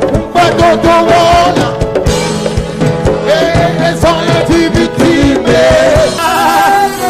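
Live church worship band playing an upbeat song with drums keeping a steady beat and a melody line over it; the drums drop away about six seconds in.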